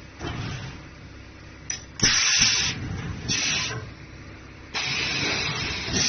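Tyre compacting machine hissing, like air being let out: a click, then two short bursts of hiss, then a longer steady hiss from about five seconds in.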